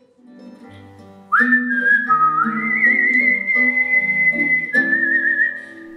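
A man whistling a slow melody of long held notes with vibrato over acoustic guitar chords. For the first second or so the guitar plays alone, then the whistling comes in loudly and gliding up to each note.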